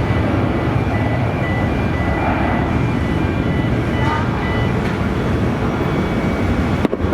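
Jet airliner engines running, a loud steady rumble with faint high tones over it; it breaks off briefly near the end.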